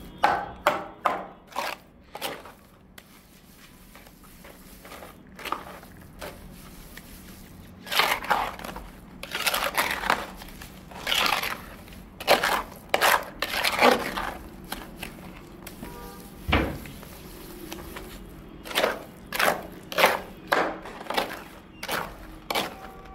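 Microconcrete being mixed by hand: irregular scraping, crunching strokes of a tool working through the thick, gritty mix, with one dull knock about two-thirds of the way through.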